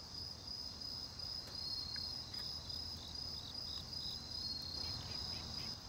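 Night insects calling in a steady high chorus, with a series of short repeated chirps from another insect in the middle. The calls are a late-summer and early-autumn mix.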